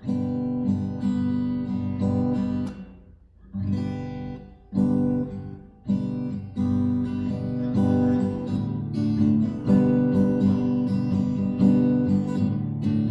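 Acoustic guitar strumming chords in the six-stroke strum pattern, with a short break about three seconds in before the strumming resumes.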